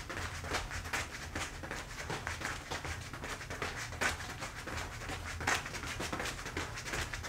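Footsteps of soft-soled beaded moccasin boots stepping and tapping on a foam play mat: a quick, uneven patter of several soft taps a second, with a few louder steps in the middle.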